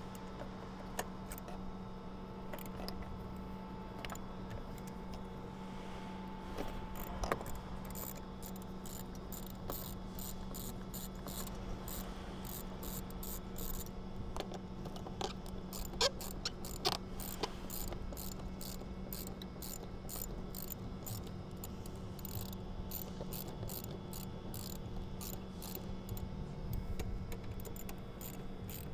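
Hand socket ratchet clicking in quick runs as bolts are loosened, the clicks coming thickest in the second half, over a steady low hum.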